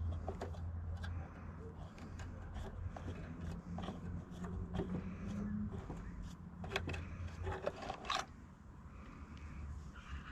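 Faint clicks and scrapes of small metal parts being handled, over a low steady hum that drops away about three-quarters of the way through.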